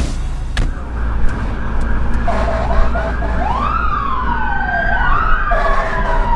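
Fire engine's electronic siren starting about two seconds in, first with a rapid yelp, then wailing in overlapping rising and falling glides, with a fast yelp again near the end. A steady low engine and road rumble runs underneath.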